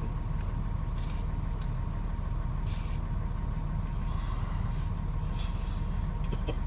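A steady low rumbling hum, with a few faint short noises over it.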